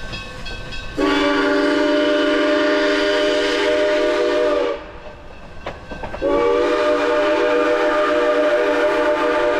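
Steam locomotive whistle on a narrow-gauge train blowing two long blasts, each a chord of several notes sounding together. The first starts about a second in and lasts nearly four seconds; after a short break the second starts and is still sounding at the end.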